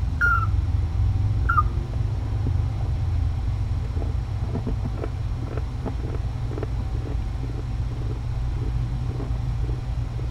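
A steady low rumble with two short, high, falling squeaks in the first two seconds and faint soft ticks after.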